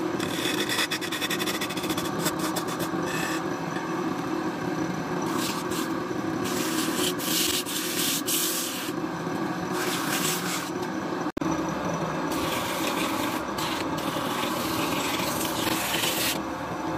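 Sandpaper pressed by hand against a wooden workpiece spinning on a lathe: a rasping hiss that swells and fades in strokes over the lathe's steady running hum. The sound breaks off for an instant about two-thirds of the way through.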